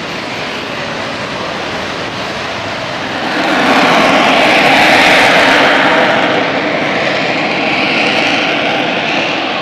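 Military jet aircraft flying low, its engine noise swelling about three seconds in, loudest around the middle, then easing slightly.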